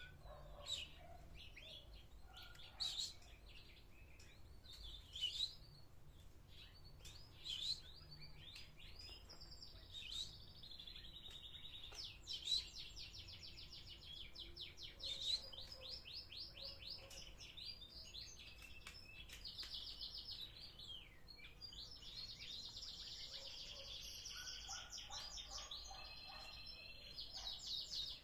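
Small songbirds chirping and singing: scattered short chirps for the first third, then long, very fast, high trills that run on almost without a break.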